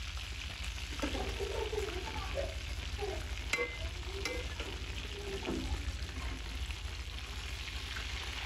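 A perforated steel skimmer stirs cooked rice with peas in an aluminium pot over heat, with a steady sizzling hiss. Around the middle, the spoon clinks against the pot twice.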